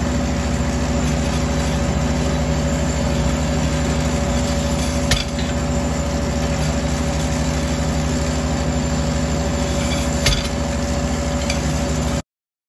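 Compact piling rig running steadily, hammering a steel tube pile into the ground with a fast, even rhythm over the engine hum; a couple of sharper metal knocks stand out, and the sound stops abruptly near the end.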